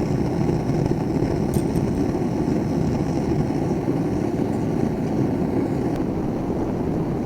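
A forge running with a steady rushing noise.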